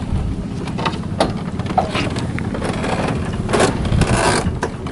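A small engine, likely a boat's, running steadily, with scattered knocks and scrapes over it and a short rush of noise about three and a half seconds in.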